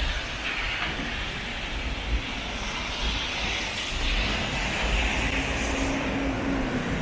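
Steady traffic noise with a hiss, and a short low hum about five seconds in.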